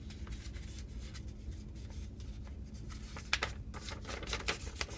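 A sheet of computer paper being folded and creased by hand, light rustles and scrapes with sharper crackles of the paper about three and a half seconds in and again near the end. A steady low hum runs underneath.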